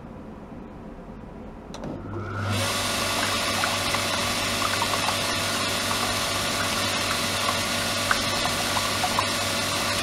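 Electric motor-driven water pump switched on with a click about two seconds in: the motor hums steadily and water from its hose pours into a plastic tub, splashing and bubbling evenly as it circulates.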